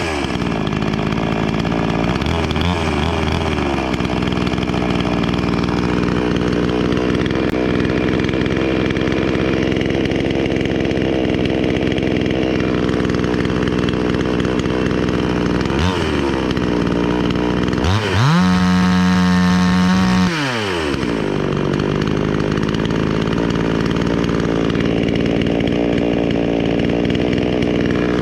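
Wemars WS-6220G 62cc two-stroke chainsaw engine running at high throttle. It dips briefly about sixteen seconds in, then revs higher and louder for about two seconds before settling back.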